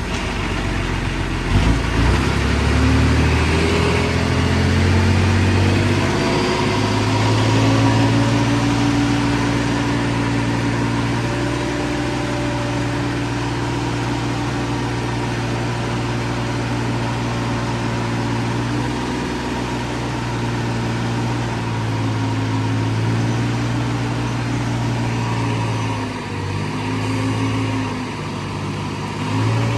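Diesel engine of heavy earthmoving machinery running. It revs up about two seconds in, holds a steady pitch, and drops briefly near the end before picking up again.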